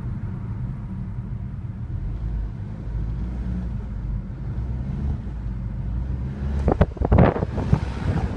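BMW 320d F31 running, a steady low drone with an even hum. About seven seconds in, several loud gusts of rushing noise break in over it.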